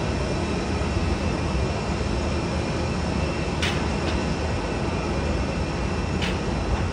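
Jet engines of a narrow-body twin-jet airliner taxiing at low power, heard as a steady low rumble with a faint high whine. Two short clicks come about three and a half and six seconds in.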